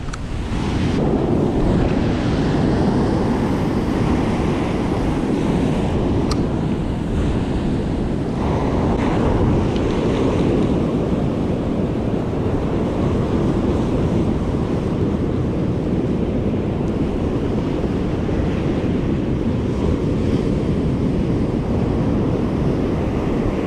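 Surf breaking and washing up a sandy beach, with wind rumbling on the microphone.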